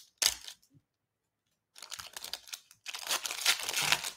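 Foil wrapper of a Flux basketball trading-card pack crinkling and tearing open: a short rustle at the start, a second's pause, then a couple of seconds of continuous crackling crinkle, loudest near the end.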